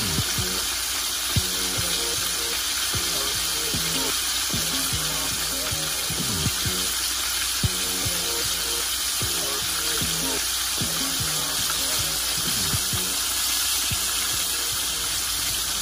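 Flour-coated flounder fillets deep-frying in very hot oil: a steady, dense sizzle with a few sharp pops of spattering oil. Background music plays underneath.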